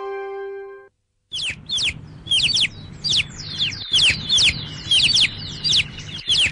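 A sustained musical note fades out, and after a short gap small birds start chirping: a rapid series of high, downward-sweeping chirps, two or three a second.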